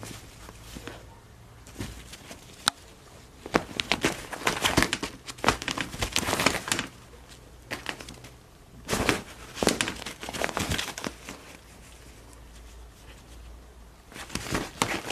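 Nylon jacket fabric rustling and crinkling in irregular bursts as a Bengal cat wriggles and paws about inside it, busiest in the middle of the stretch, with a few sharp ticks.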